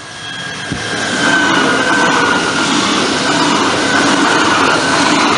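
Two coupled DB Class 423 electric S-Bahn units approaching and passing close by. The noise of wheels on rail builds over the first second into a steady, loud rumble and rush, with a faint high whine that falls slightly in pitch.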